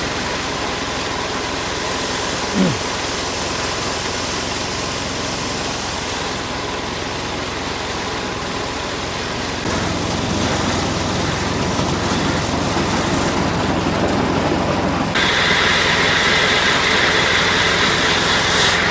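Steady engine and road noise of a running vehicle, with a short falling tone about two and a half seconds in; the noise changes character twice, around ten and fifteen seconds in.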